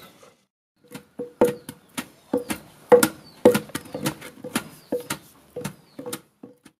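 Wooden pestle pounding roasted coffee beans in a wooden mortar. It makes a steady run of knocks, about two to three a second, each with a short ringing tone, starting about a second in.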